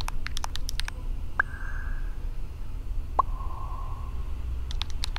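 Rapid clicks of typing on a phone keyboard, then two short text-message alert tones, a higher one about a second and a half in and a lower one about three seconds in, each ringing briefly; more typing clicks come near the end. A low steady hum sits underneath.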